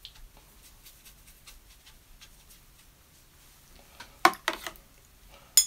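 Quiet watercolour brush strokes on paper, then a quick cluster of sharp taps about four seconds in and a single sharp click near the end.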